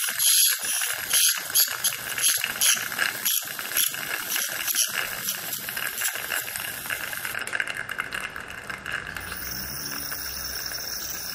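Satelec piezoelectric ultrasonic handpiece with a Perfect Margin insert working along the margins of prepared front teeth: a high-pitched buzzing chatter. It pulses two or three times a second in the first half and turns steadier later.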